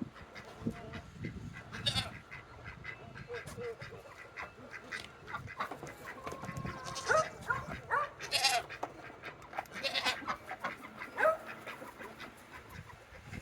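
Goats bleating again and again while waiting to be fed, with wind rumbling on the microphone.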